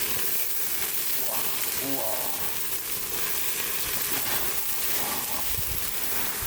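Pork sizzling on a charcoal grill, a steady crackling hiss, with a brief faint voice about two seconds in.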